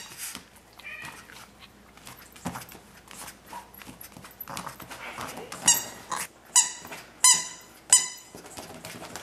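Small dog chewing a red squeaky toy, with soft chewing and rustling and then four loud, short, high squeaks under a second apart in the second half.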